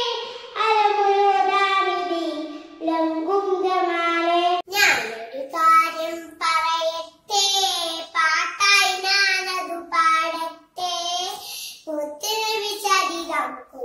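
A young girl singing a Malayalam devotional song (ishal) solo, with no instruments and with long held notes. About five seconds in, the voice cuts off and a second small girl's voice takes up the song in shorter phrases.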